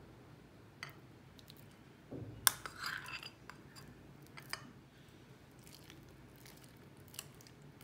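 Metal spoon scraping soft mashed aubergine and potato out of a glass bowl into a glass bowl of beaten egg, with a sharp clink of metal on glass about two and a half seconds in and a few lighter clinks later.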